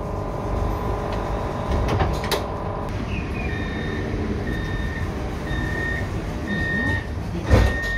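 Inside the cab of a CAF Urbos 3 tram at a standstill: a steady electrical hum cuts out about three seconds in. A short high electronic beep then repeats about once a second, and two thumps come near the end.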